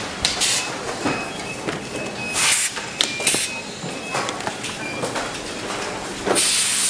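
Assembly-line factory noise: several short hisses, the strongest near the end, over a clatter of small clicks, with brief high beeps several times.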